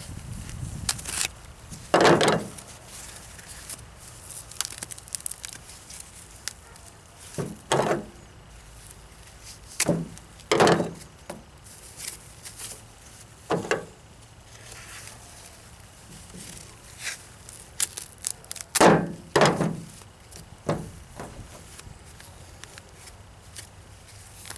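Hands working on a freshly shot pigeon: short, irregular rustling and ripping noises, about nine of them with pauses between.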